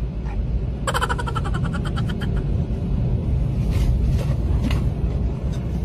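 Steady low rumble of a car's interior while driving. About a second in comes a brief rapid train of sharp pulsing sounds, with a few single ticks later.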